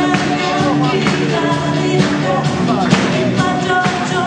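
A live pop song: a singer on a handheld microphone, amplified, over instrumental accompaniment with drums.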